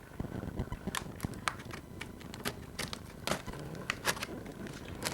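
Packaging being handled: irregular sharp clicks and taps with some crinkling.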